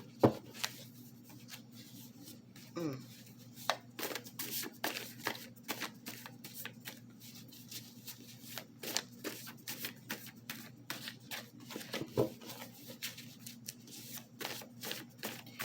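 A deck of tarot cards being shuffled by hand: a long run of quick, irregular card flicks and slaps, over a low steady hum.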